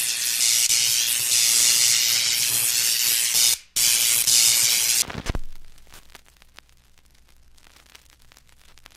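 Logo-intro sound effect: a loud, steady, high hiss like spraying steam, with a brief break about three and a half seconds in, ending a little after five seconds with a low thud. After that, only faint room noise with light clicks.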